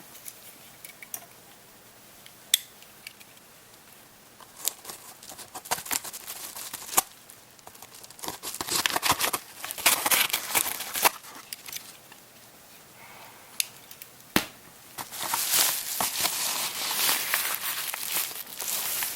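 Shipping packaging being handled and torn open, with crinkling and tearing and scattered sharp clicks and knocks. The crinkling comes in two longer stretches, one in the middle and one near the end.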